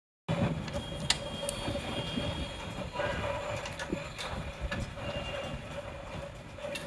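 Light clicks and handling noise from small hardware being worked on by hand, over a steady background hum.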